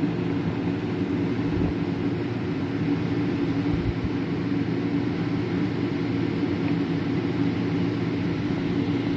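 Metal planing machine running with a steady hum and mechanical noise as it planes a lathe bed.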